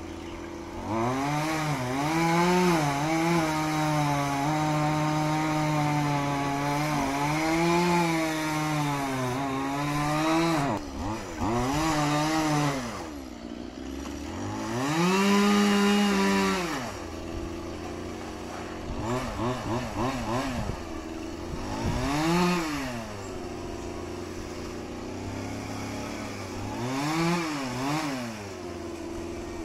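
A chainsaw running high for about the first ten seconds, its pitch wavering, then dropping back to idle, revved up again four more times, briefly, in the second half.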